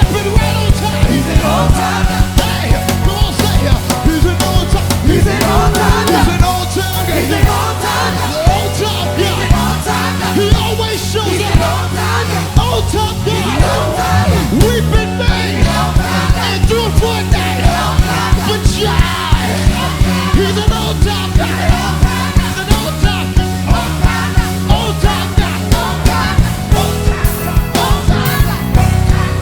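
Live worship band playing a fast, driving song with a steady drum beat, with voices singing or shouting over it.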